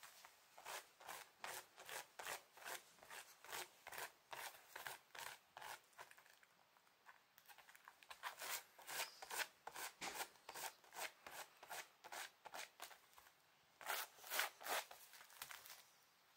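Shiba Inu digging at a tatami mat with its front paws: a run of quick dry scratches, about three or four a second. It thins out a little after six seconds in, picks up again, and has a louder flurry about fourteen seconds in.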